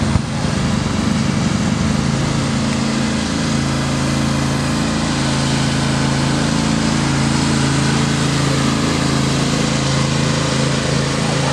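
John Deere riding lawn tractor's engine running steadily at speed as it drives past, with a short knock just after the start.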